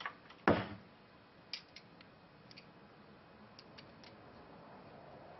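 A sharp knock about half a second in, then scattered light clicks and ticks of small metal parts and a hand tool being handled during muffler reassembly.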